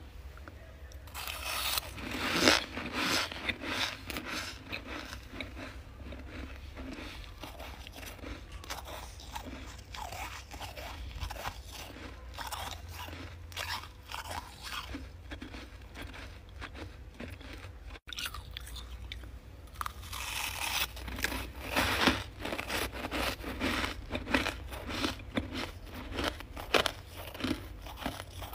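Freezer frost crunching in a fast, irregular run of crisp crackles, with a brief break about two-thirds of the way through before the crunching picks up again.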